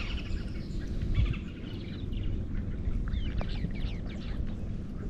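Birds chirping, with a quick run of short high calls about three to four seconds in, over a steady low rumble of background noise.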